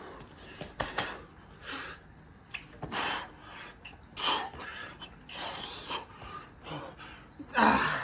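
A man breathing hard and out of breath from exertion during burpees: gasps and pants about once a second, the loudest near the end.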